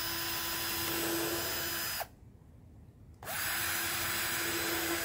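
Cordless drill boring through the wooden side bar of a beehive frame: it runs steadily for about two seconds, stops, and spins up again about a second later to drill the next hole.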